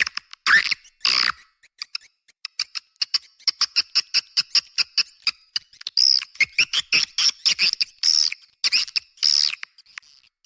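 Recorded edible-nest swiftlet calls of the kind used as a swiftlet-house lure sound: fast trains of sharp high clicks, then longer chattering chirps, all high-pitched with no low end.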